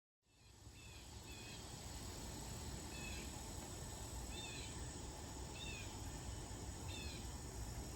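A bird calling outdoors: one short chirp with a slight downward slur, repeated about every second and a half, over a steady low rumble of outdoor background noise.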